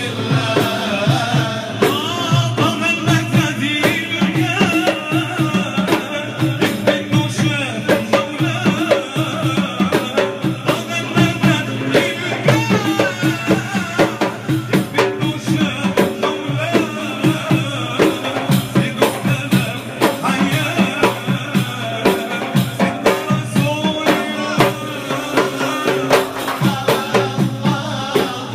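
Men's voices singing an Arabic devotional madih chant, accompanied by frame drums (daf) and a riq tambourine keeping a steady, dense rhythm of strokes and jingles.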